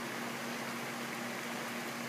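Heavy thunderstorm rain falling in a steady hiss, with no thunder and a faint steady hum underneath.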